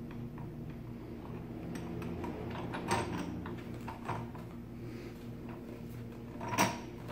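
Hard plastic clicks and knocks from a Sizzix Big Kick die-cutting machine as it is handled and its crank handle is fitted to the side hub. There are a few sharp knocks, the loudest near the end, over a steady low hum.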